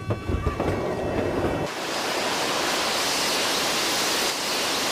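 Airliner emergency exit door being opened with a few low thumps, then about a second and a half in a steady rushing hiss starts and holds: the door's escape slide inflating.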